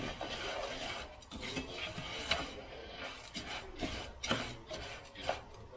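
Black spatula scraping and stirring dry long-grain rice in a square copper-coloured pan: repeated rasping strokes as the grains are pushed around and toasted in a little oil.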